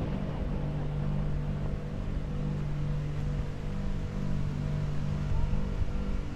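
A steady low machine hum, unbroken throughout.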